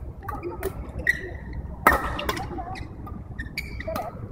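Badminton rackets striking a shuttlecock during a doubles rally: a run of sharp hits, the loudest about two seconds in, with short squeaks from shoes on the court.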